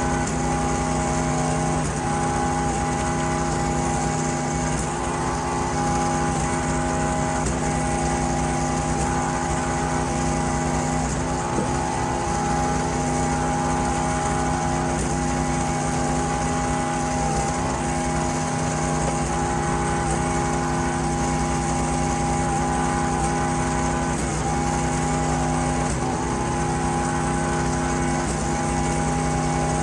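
Small engine on a wood-processing machine running steadily at a constant speed.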